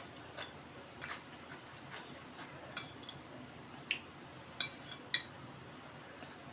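Eating utensils tapping and clinking against a dish while eating, a handful of separate light clicks, some with a short ring, the sharpest about four and five seconds in.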